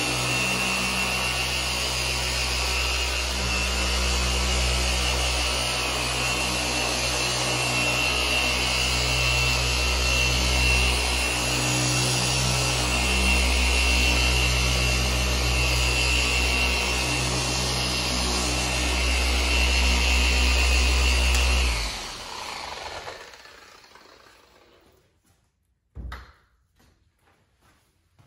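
RUPES dual-action polisher running steadily with a foam pad on car paint, with a constant whine over a low hum. About 22 s in it is switched off and winds down over a few seconds, followed by a single short knock.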